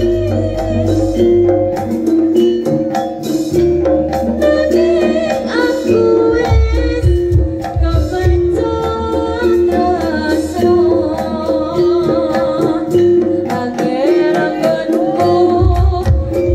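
Jaranan music played live by a Javanese gamelan-style ensemble: frequent drum strokes over a repeating pattern of pitched notes and long low gong tones, with a voice singing a wavering melody above.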